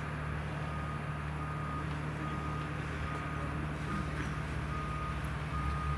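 Cessna F172N Skyhawk's four-cylinder piston engine running steadily at low power as the light plane taxis, heard at a distance. A high beep of about half a second repeats roughly once a second over it.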